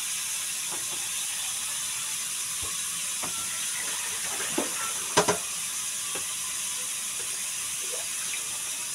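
Scattered light clinks and knocks of metal kitchen bowls and utensils being handled, the sharpest about five seconds in, over a steady hiss.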